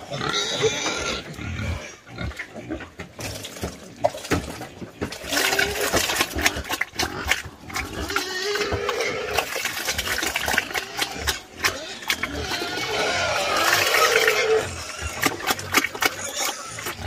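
A sow slurping and smacking wet slop from a basin, with quick wet clicks of her mouth throughout. Three drawn-out pitched pig calls, about a second each, come in partway through and near the end.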